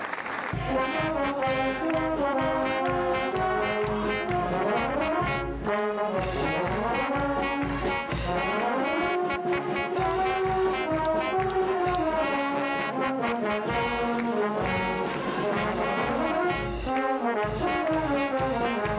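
Brass band playing a melody over a steady bass drum beat. It strikes up about half a second in as applause fades.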